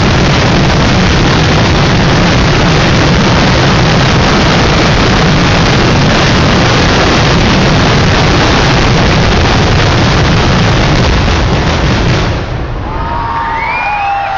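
Temple fireworks barrage: heavy firecrackers going off so fast that the bangs run together into one continuous loud roar, which dies away about twelve seconds in. As it fades, a crowd's whistles and shouts come through.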